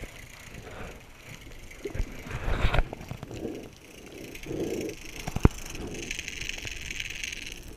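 Rat-L-Trap lipless crankbait rattling as it is reeled through the water, heard muffled from underwater, with a few sharp knocks about two and five and a half seconds in. The rattle from the lure's loose shot is meant to draw fish.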